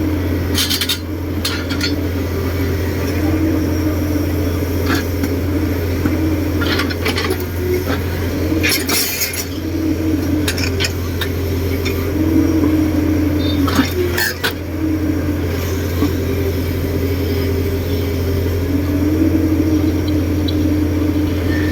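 Heavy diesel construction machine running with a steady deep drone, its higher note swelling and falling every second or two. Sharp metallic clinks and clanks come now and then.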